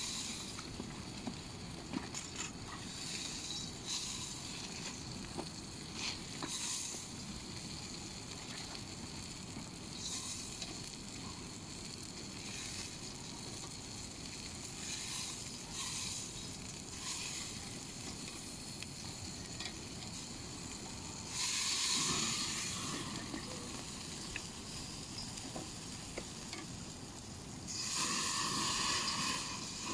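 Meat sizzling on the grate of a portable charcoal grill, with frequent short crackles. The sizzling swells louder twice, about two-thirds of the way in and again near the end, the second time as a piece is turned over the flaming coals with tongs.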